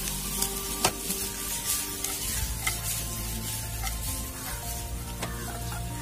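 Sliced onion, capsicum and dried red chillies sizzling in hot oil in a nonstick frying pan while being stir-fried with a wooden slotted spatula. The spatula clicks and scrapes against the pan, with the sharpest click about a second in.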